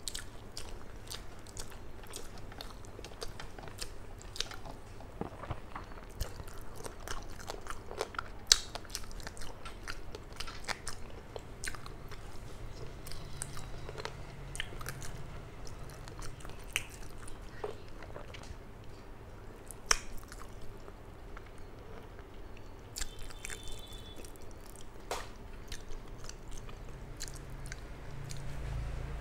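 Close-miked chewing of a mouthful of rice and hilsa fish eaten by hand, with many short wet smacks and clicks of lips and tongue.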